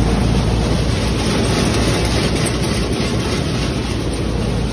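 A groundnut (peanut) thresher and the tractor powering it running steadily under load while threshing. The result is a loud, continuous machine noise with a deep engine hum underneath.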